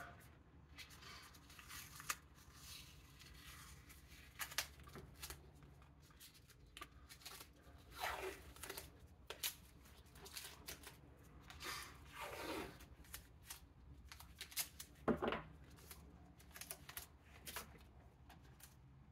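Blue painter's tape pulled off the roll and torn, and gloved hands pressing it onto the lid of a plastic storage tub: faint rustling and light clicks, with longer ripping sounds about eight and twelve seconds in.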